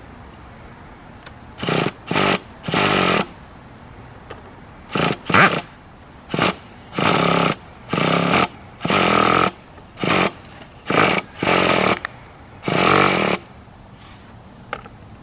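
Traxxas EZ-Start electric starter spinning the Nitro 4-Tec's TRX 3.3 nitro engine in about a dozen short bursts with pauses between, the engine not catching. The starter sounds weak, which the owner suspects is a run-down starter battery.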